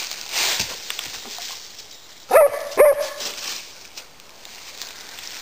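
Border collie barking twice in quick succession about two seconds in. Dry fallen leaves rustle and crunch underfoot before and after the barks.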